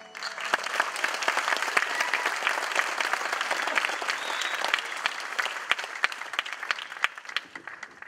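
Audience applauding: a dense burst of clapping that starts at once as the music stops and thins out over the last second or so.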